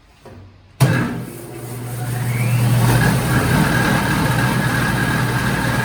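Disc sander switched on: the motor starts with a sudden jolt about a second in, its whine climbs in pitch as the disc spins up to speed, then settles into a steady running hum and whine.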